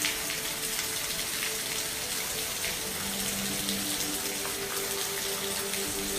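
Steady rainfall, an even hiss with individual drops ticking through it. Faint held low tones come and go beneath it.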